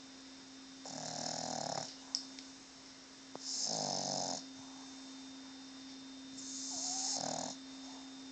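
Boston Terrier snoring in its sleep: three snores, each about a second long, coming roughly every three seconds.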